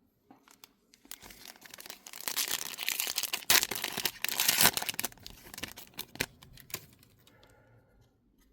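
Plastic wrapper of a trading card pack being torn open and crinkled: a rustling, crackling stretch of a few seconds, loudest in the middle.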